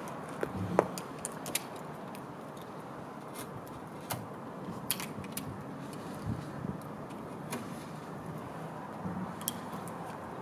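A small blade scraping and picking loose splinters of old wood from the edge of a chest of drawers' top: scattered light clicks and snaps over steady background noise.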